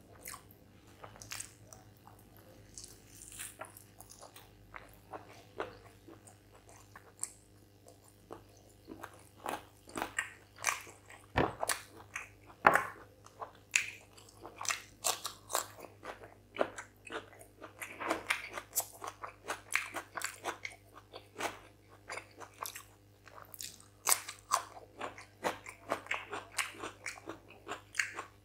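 Close-miked eating of chicken curry on the bone and cucumber slices: chewing and biting, with many short crunches and wet clicks. They come sparsely at first, then thick and fast from about nine seconds in. A faint steady hum lies underneath.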